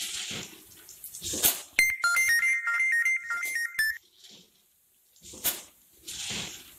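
A phone ringtone, a short stepping melody of high electronic tones, plays for about two seconds starting about two seconds in. Under it, an automatic snack pouch-packing machine cycles with a sharp hissing burst about every two seconds.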